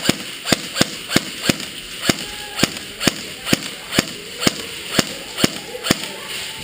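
Airsoft gun firing single semi-automatic shots, about fourteen sharp cracks at roughly two a second, stopping about six seconds in.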